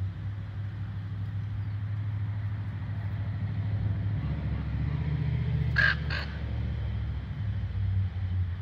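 Two quick calls from a raven close together about six seconds in, over a steady low rumble of a vehicle engine running.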